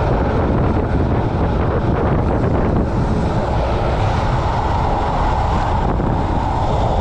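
Wind buffeting the camera microphone at about 24 mph on a downhill run, over a steady roar of wheels rolling on rough asphalt.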